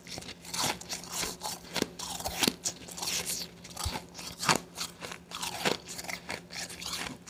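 A person chewing a mouthful of blended ice close to a clip-on microphone: a run of sharp, irregular crunches, about two a second.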